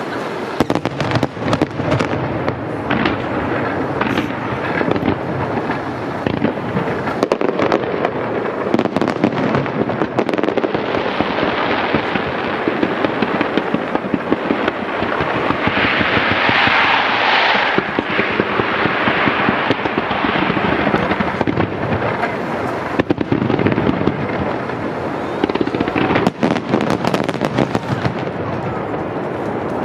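A rapid, continuous barrage of aerial firework shells bursting, bangs and cracks overlapping one after another, swelling into a dense stretch of crackling about halfway through.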